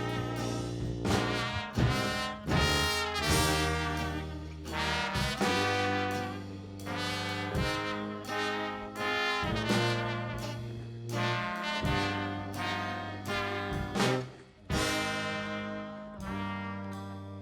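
Background music: an instrumental track led by brass horns over a steady bass line.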